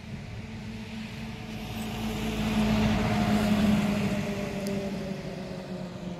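A motor vehicle passing on the road: its engine hum grows louder, peaks about halfway through, then fades, the pitch dropping slightly as it moves away.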